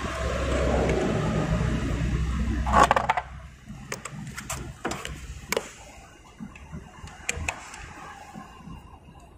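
A steady low rumble ends in a loud knock about three seconds in. After that come scattered light clicks and taps as hands handle a metal bracket and wiring connectors in a motorcycle's battery compartment.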